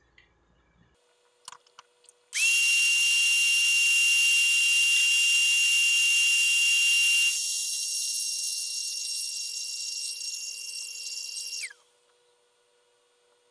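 A small high-speed electric motor runs with a rush of air and a steady high whine for about nine seconds. It gets quieter partway through, then cuts off and winds down with a falling whine.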